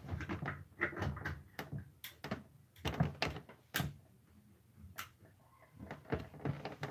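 Scattered clicks and knocks of hands handling equipment. They come thick for the first few seconds, then thin out to a quieter stretch broken by one sharp click about five seconds in.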